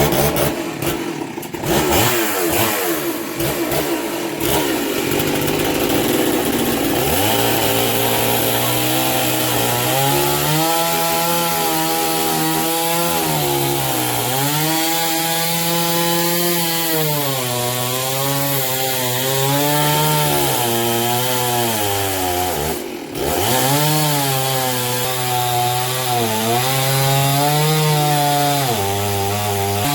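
Gas chainsaw cutting through a thick log. It runs high at first, then the engine note drops and climbs again and again as the chain loads up in the wood and frees. About three quarters through, the note briefly dips and comes back.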